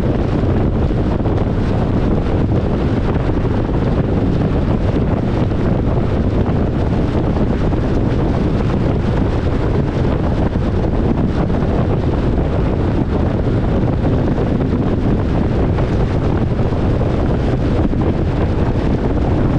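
Steady, loud wind noise buffeting the microphone, a low rumbling hiss with no breaks.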